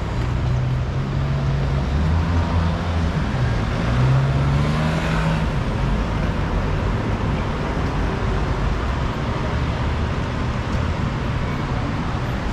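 City street traffic: motor vehicle engines running close by, with a low hum that swells about two to five seconds in as a vehicle goes past.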